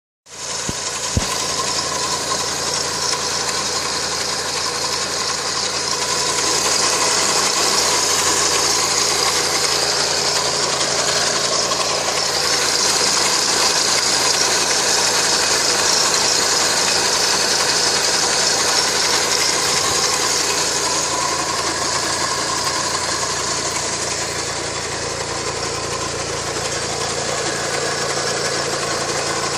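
2007 Honda CR-V engine running steadily, with a steady high hiss over the engine note and one short click about a second in; the owner hears a strange noise in it but cannot name its cause.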